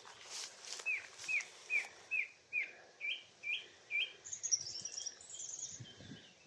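Song thrush singing: a run of clear repeated notes about two a second, the first five hooking downward and the next three upward, then a quick, high twittering phrase.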